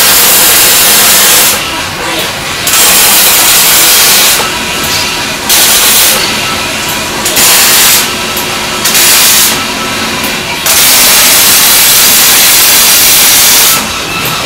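Industrial welding robot's arc: a loud, steady hiss that stops for a fraction of a second and starts again about six times as the torch moves between welds, the longest weld running about three seconds near the end.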